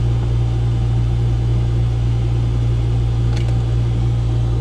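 Steady low hum of running machinery. A faint single click about three and a half seconds in, as a wire's pin is pushed home into a Deutsch connector.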